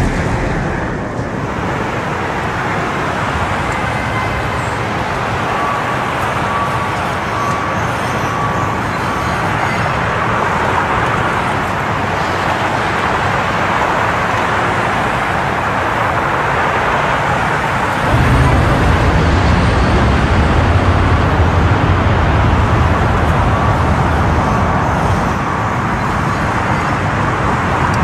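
Steady vehicle road and traffic noise, tyres on pavement, with a deeper rumble joining about two-thirds of the way through.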